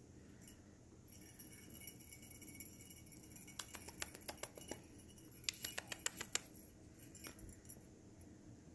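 Faint clusters of quick, light clicks from a kitten playing with a feather wand toy, one cluster about halfway through and a louder one a second or so later.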